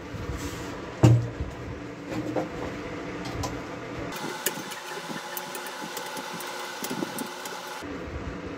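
A bolt in a peripheral water pump's housing being tightened with a T-handle socket wrench: a metal knock about a second in, then light metallic clicks as the wrench is turned.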